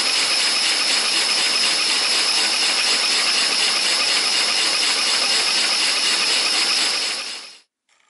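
LEGO vacuum engine with twin double-acting cylinders, driven by vacuum-cleaner suction, running at full speed of about 360 rpm: a steady rushing hiss of drawn air with a fast, even rattle of the plastic mechanism. It fades out about seven seconds in.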